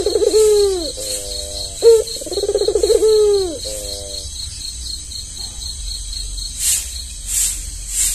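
Albino Barbary dove (puter) cooing twice in the first four seconds: a low coo with a rolled, trilling middle that falls away at the end. A faint high insect-like ticking runs behind it, and from near the end a high rasping pulse repeats about every two-thirds of a second.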